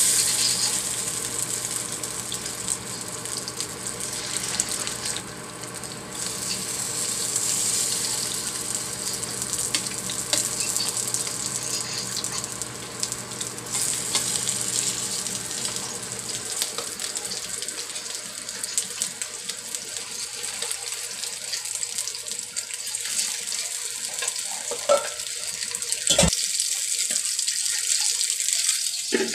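Tilapia pieces frying in hot oil in a non-stick wok, a steady sizzle throughout, with one sharp knock near the end.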